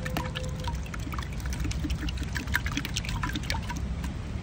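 Raw eggs being whisked with a metal fork inside a hollowed-out pumpkin: wet sloshing with quick, irregular clicks.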